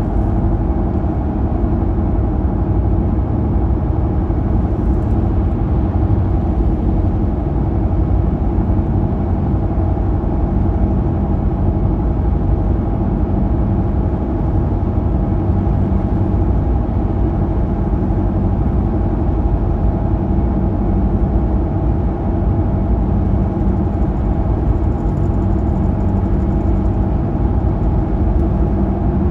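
Car cruising at highway speed, heard from inside the cabin: a steady, unchanging drone of engine and road noise.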